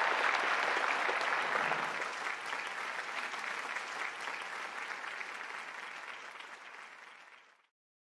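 Audience applauding, a dense even clapping that fades out gradually and stops shortly before the end.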